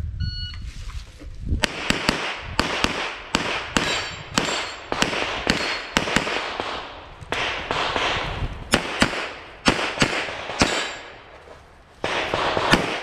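A shot timer's single electronic beep near the start, then a semi-automatic pistol firing fast strings of shots, several a second, each crack echoing. There is a short lull about eleven seconds in before the shooting resumes.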